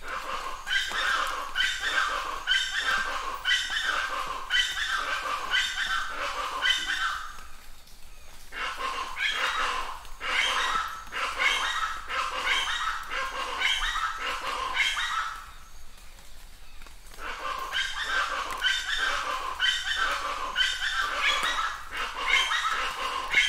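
An animal calling over and over, about two calls a second, in three bouts of several seconds each with short pauses between.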